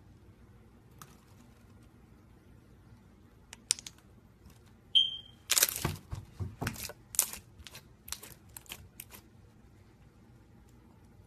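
Crunchy slime being pressed and squeezed by hand, giving a run of crisp crackling crunches for about three and a half seconds. A few faint clicks and a brief high squeak come just before.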